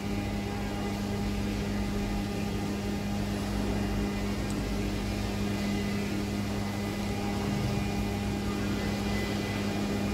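Steady hum of workshop machinery: an electric motor's low drone under an even hiss, unchanging.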